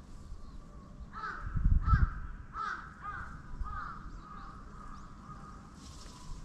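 Crow cawing, a run of about five caws between one and four seconds in. A brief low rumble sounds under the second caw.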